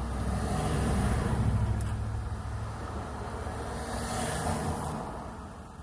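A road vehicle passing by, its low rumble swelling to a peak about a second and a half in and fading away near the end.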